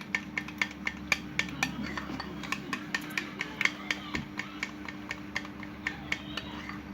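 A stirrer clinking against a container while egg white and dish-soap slime is stirred, about three to four light clicks a second, over a faint steady hum.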